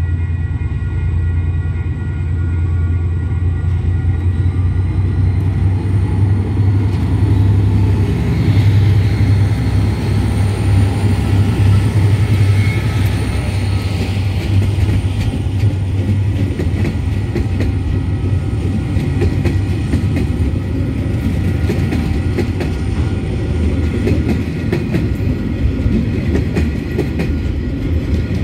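Diesel-hauled freight train passing close by at a level crossing. The KiwiRail DCP and DXC class diesel-electric locomotives' engines rumble past first, then container wagons roll by with a steady clickety-clack of wheels over the rail joints.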